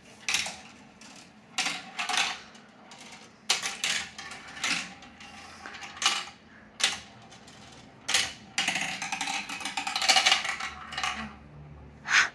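A marble running down a tall plastic marble-run tower, clacking against the plastic tracks and tubes in a string of sharp clicks, with a longer rattling stretch about two-thirds of the way through and a last click near the end.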